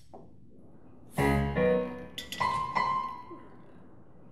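Acoustic piano playing a halting phrase, starting about a second in: a loud deep chord, another chord, then a few high ringing notes. It stands in for the broken mechanical nightingale's song, called dreadful.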